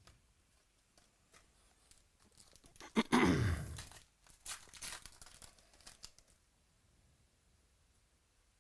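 A trading card pack's foil wrapper is ripped open in one loud tear about three seconds in, followed by a few seconds of crinkling as the wrapper is handled.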